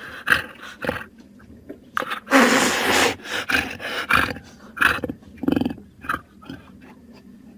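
Jaguar vocalizing: a series of short, rough grunts and growls, with one longer, louder snarling roar about two seconds in.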